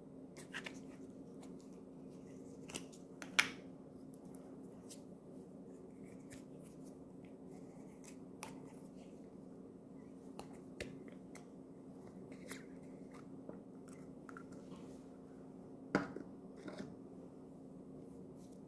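A quiet room with a steady low hum and scattered small clicks and taps. The two sharpest taps come a little over three seconds in and about sixteen seconds in.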